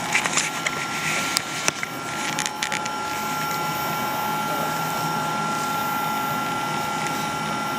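Steady machine noise with two constant high whining tones, from lab equipment running. A few clicks and knocks in the first three seconds come from the apparatus being handled.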